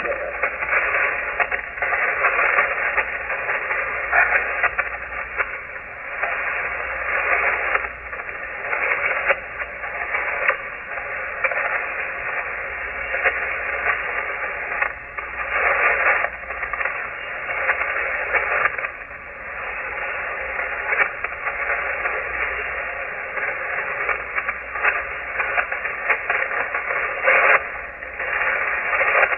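Shortwave receiver tuned to the 40-meter amateur band, giving out band static and hiss through its narrow single-sideband passband. The noise swells and fades unevenly, with no readable signal.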